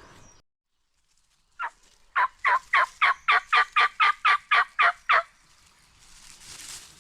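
A series of turkey yelps: about a dozen short, evenly spaced notes at roughly four a second, each sliding down in pitch, preceded by a single note a moment earlier.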